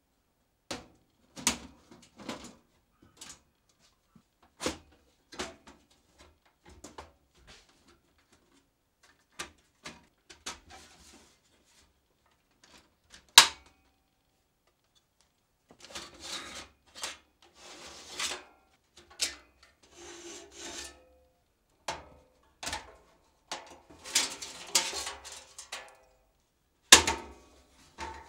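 An old PC tower case being taken apart by hand: scattered clicks and knocks of plastic bezel and sheet-metal panels with short quiet gaps, and one sharp click about thirteen seconds in. From about halfway the sounds come closer together, with rubbing and scraping of metal parts.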